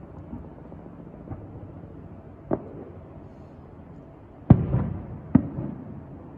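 Fireworks bursting: a few fainter booms in the first half, then two loud booms about a second apart near the end, the first trailing off in a rumbling crackle. A steady low engine hum from the cruise boat runs underneath.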